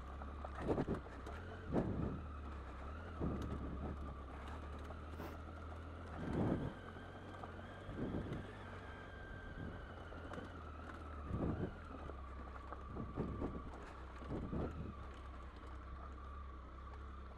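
Triumph Tiger 800's three-cylinder engine running steadily with a thin whine as the motorcycle rides down a rocky track, with irregular knocks and clatters every second or two from the wheels and suspension hitting stones.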